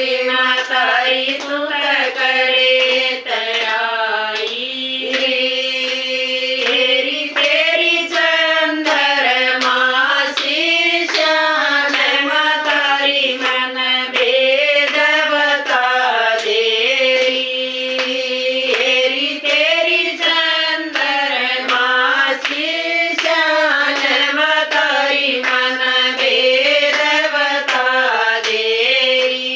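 A group of women singing a Hindi devotional bhajan together to a single melody, keeping time with hand claps.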